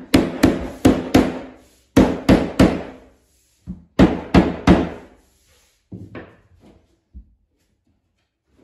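Rubber mallet knocking a plank of flooring into place on a plywood subfloor: sharp knocks in quick runs of three or four, with softer knocks toward the end.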